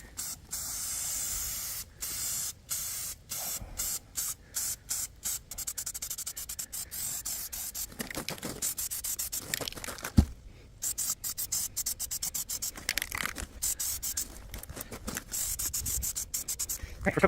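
Aerosol can of Rust-Oleum spray paint hissing as a light coat goes on, first in a steady spray and then in many short and longer bursts. A single sharp knock about ten seconds in.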